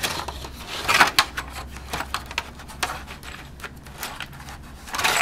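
Cardboard board-game box and its plastic tray being handled: a string of knocks, scrapes and rustles, loudest about a second in and again near the end.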